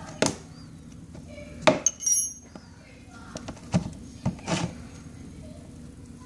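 Metal wrench clinking against the motorcycle's oil drain bolt as it is worked loose: about six sharp clinks and taps, one ringing briefly about two seconds in.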